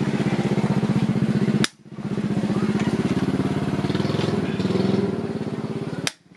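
A small engine running steadily with a fast, even pulse. It cuts out abruptly twice, about two seconds in and near the end.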